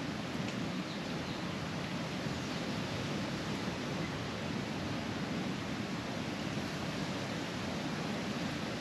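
Steady rushing outdoor ambient noise, even throughout with no distinct events.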